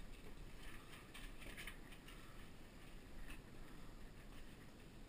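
Faint footsteps scuffing and crunching on rubble, with a few small irregular clicks.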